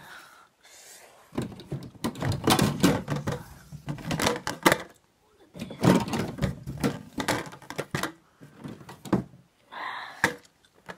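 Packaging and parts of a goal-net kit being handled and pulled out: bursts of rustling with many quick clicks and knocks, in two long spells with a short scrape near the end.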